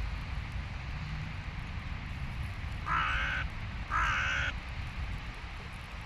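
Hooded crow giving two harsh caws about a second apart, each about half a second long, over a steady low rumble.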